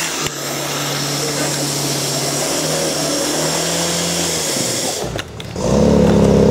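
Portable fire pump's engine running steadily. About five seconds in the sound dips briefly, then comes back louder with a higher, busier drone.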